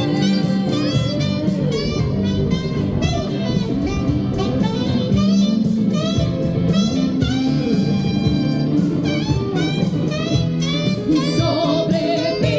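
Music with a steady beat and a wavering lead melody.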